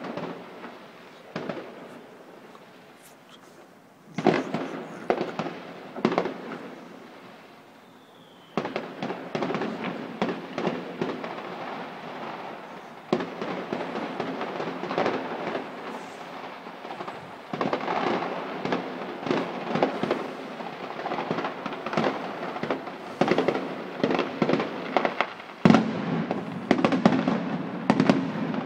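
Distant fireworks display: scattered bangs at first, a flurry of reports about four seconds in, then a near-continuous barrage of rapid bangs and crackling that grows loudest near the end.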